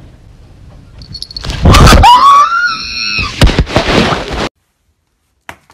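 A person screams in fright at a large spider, a loud scream rising in pitch, mixed with knocks and rumble from the phone being jostled as they run up the stairs. It cuts off suddenly about four and a half seconds in.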